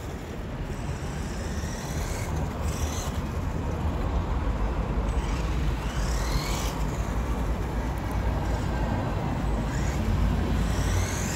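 Traxxas E-Revo 1:16 VXL's brushless electric motor whining up in pitch about three times as the RC truck accelerates across asphalt, over a steady low rumble.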